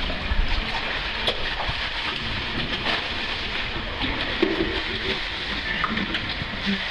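Water sloshing and splashing as cavers wade and crawl chest-deep through a flooded cave passage under a low rock roof, over a steady rush of water with small splashes and knocks scattered through it.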